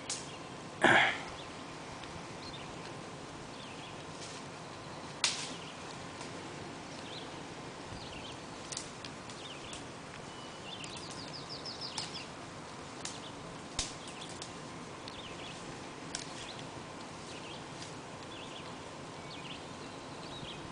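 Quiet outdoor background of a grassy field with scattered sharp clicks and a short noisy burst about a second in, the loudest sound. A small bird gives a brief high trill of rapid notes about eleven seconds in.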